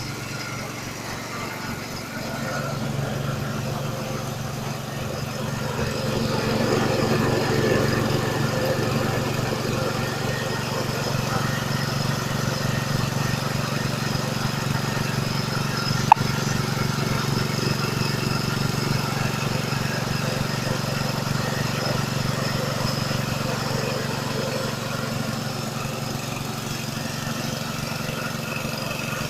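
Multifunction grass-chopper machine running steadily while grinding rice husks, its drone getting louder a few seconds in and then holding. A single sharp click about halfway through.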